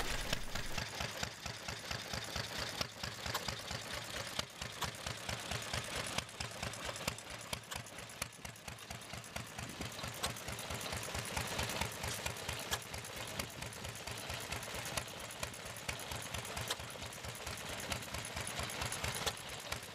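Antique stationary engine running steadily with a fast, even beat, driving belt-powered machinery that clatters along with it: first an old wooden-tub washing machine's gear mechanism, later a pump jack working a cast-iron hand pump.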